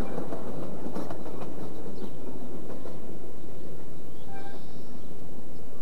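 Ridable miniature park train running on its track just after passing by, a steady rumble of wheels on rail with a few sharp clicks, as over rail joints, in the first three seconds.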